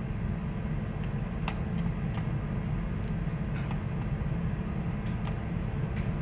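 Steady low rumble and hum of machinery and ventilation on a ship's bridge, with a few faint clicks.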